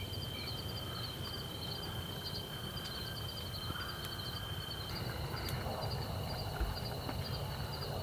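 Insects chirping in a quick, evenly repeating pattern over a steady high insect trill, with a low rumble underneath and one soft low thump late on.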